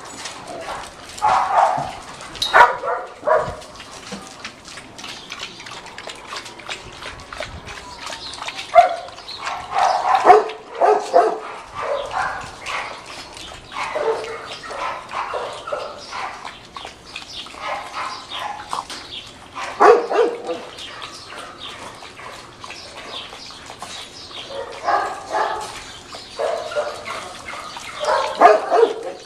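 Dogs barking and yipping in short bouts that recur every few seconds.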